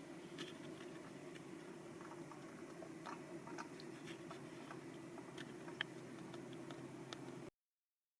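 Small die-cast toy models being handled: faint scattered clicks and taps over a steady low hum. The sound cuts off to dead silence near the end.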